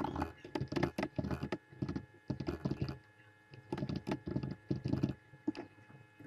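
Typing on a computer keyboard: quick runs of keystrokes with a short pause about halfway, over a steady electrical hum.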